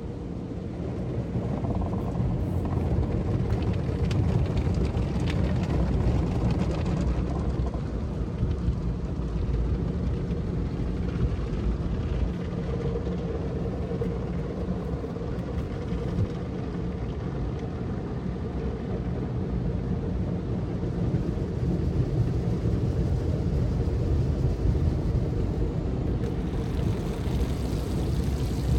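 Automatic car wash heard from inside the car: a steady rumble of the wash machinery with water spray and cloth brushes washing over the windshield and body.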